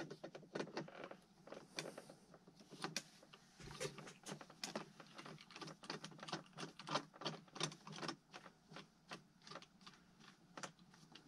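Faint, irregular light clicks and taps of plastic as a propeller is seated on its motor hub and its retaining screw is turned snug with a small screwdriver.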